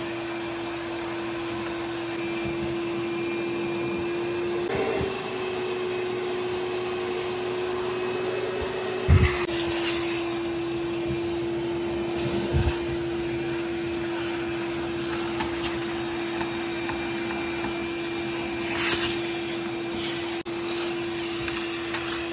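Vacuum cleaner running steadily with a constant whine while vacuuming lint. Its pitch drops slightly about nine seconds in, with a sharp knock at that moment and another a few seconds later.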